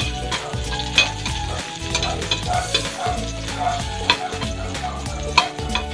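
Sliced onion sizzling in oil in an aluminium wok while a metal slotted spatula stirs it, scraping and clicking against the pan several times.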